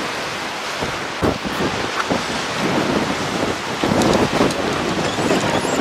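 Strong wind buffeting the microphone over heavy sea surf, with the noise swelling loudest around four seconds in.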